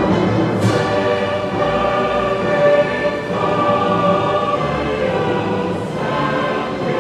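Slow choral music of sustained sung chords, the harmony shifting about three seconds in and again near six seconds.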